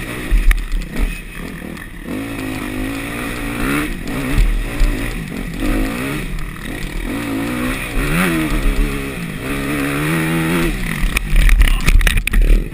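Dirt bike engine revving up and down, its pitch rising and falling with the throttle. Near the end, a burst of loud knocks and clatter as the bike goes down in a crash.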